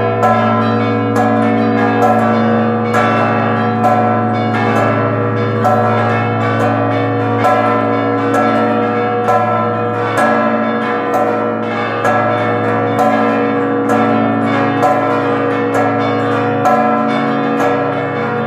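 The church bells of St Mary of Carmel, Valletta, a Maltese ring of seven bells with the largest pitched at B, ringing a festive peal. The strikes come thick and fast, several a second and overlapping, over the steady hum of the biggest bell.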